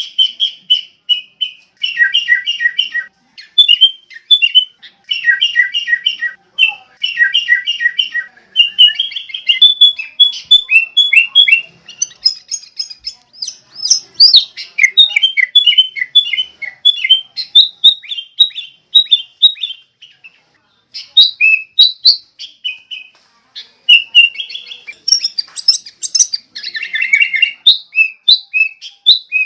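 A songbird singing in quick, high chirping phrases of a second or two, with brief pauses between them. The phrases grow more varied and nearly continuous in the middle.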